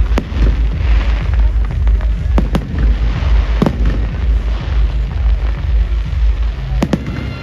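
Fireworks display exploding overhead: sharp bangs near the start, a quick pair about two and a half seconds in, another just before four seconds, and a close pair near the end, with crackling between them. A continuous low rumble runs underneath.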